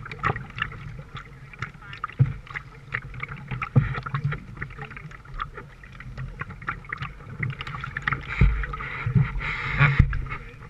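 A wooden canoe being paddled on a river: the wooden paddle's strokes through the water, with irregular splashes, drips and small knocks against the canoe, and a louder splash near the end.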